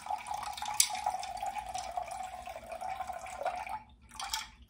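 Cold water poured from a glass cup into a plastic blender jar holding cream: a steady splashing pour with a ringing filling note and a sharp click about a second in. The pour stops near the end, followed by one brief last splash.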